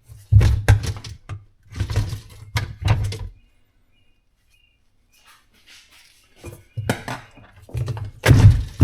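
Irregular clunks and clinks of hard parts being handled and knocked together, in two bursts with a quiet pause of about three seconds between them.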